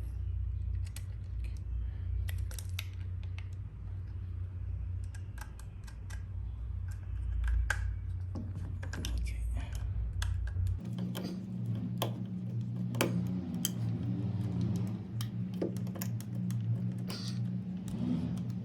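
Irregular small clicks and taps of a screwdriver, wires and a plastic switch body being handled while the switch's terminal screws are tightened, over a steady low hum that shifts to a higher pitch about eleven seconds in.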